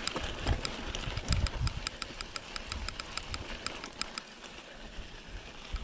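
Mountain bike's rear freehub ticking steadily, about six clicks a second, as the bike coasts down a dirt trail, over a low rumble of the tyres and bumps. The ticking stops about four seconds in and starts again near the end.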